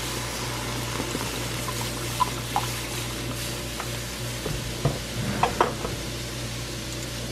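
Almond milk sizzling in a hot nonstick frying pan as it meets a margarine-and-flour roux, stirred with a fork and a whisk, with a few light clinks of the utensils against the pan in the middle.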